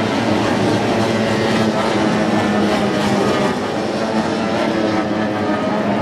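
Several SST-45 racing boats' outboard engines running at full throttle, a steady overlapping engine drone as the pack races past.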